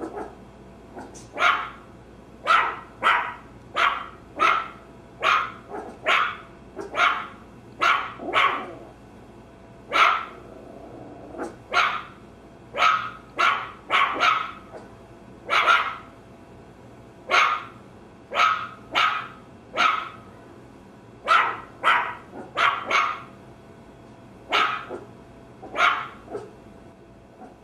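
A small dog, a Maltese, barking over and over in short barks, some single and some in quick runs of two or three, with brief pauses between.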